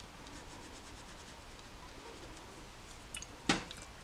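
Soft, faint rubbing of a watercolour brush stroking paint across paper, with a sharp tap about three and a half seconds in.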